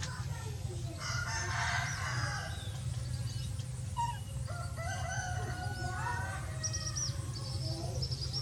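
Birds calling: a longer call about a second in, another rising and then held steady for over a second in the middle, and quick high chirps near the end, over a steady low hum.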